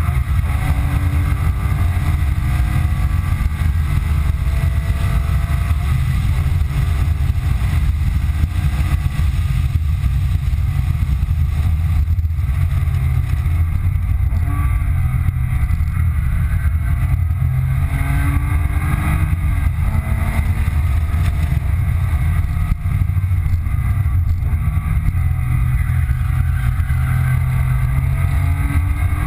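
2005 Porsche 997 Carrera 2's 3.6-litre flat-six engine under hard driving, heard from inside the cabin. Its pitch climbs through each gear and drops at each shift, over a steady loud rumble.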